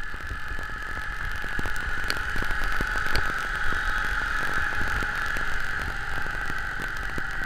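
Ride-on triplex reel greens mower running at close range as it cuts, with a steady high whine over a low rumble and scattered light clicks.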